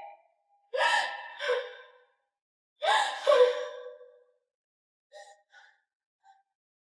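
A woman's distressed wordless cries come in two outbursts, each about a second and a half long and falling in pitch at the end. A few faint clicks follow.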